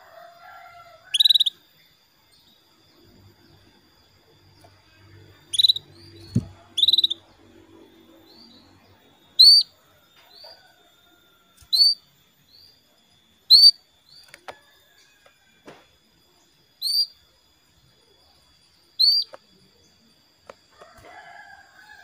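Female canary giving short, sharp single calls, about eight loud ones a second or two apart with a few fainter ones between; this is the female's call to a male. A faint steady high tone runs underneath, and a soft thump comes about six seconds in.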